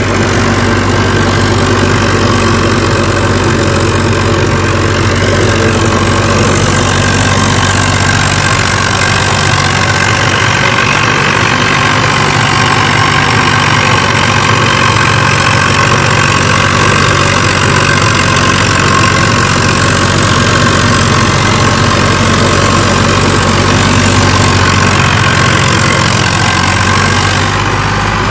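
HMT 3511 tractor's diesel engine running steadily under load, driving a 7-foot Punni super seeder as it works the field.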